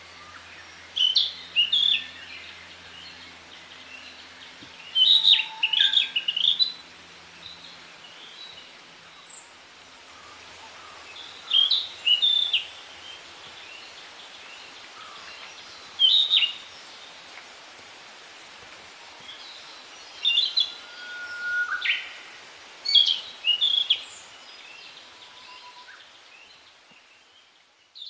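Male Narcissus flycatcher singing: short phrases of clear whistled notes, repeated about every four to five seconds.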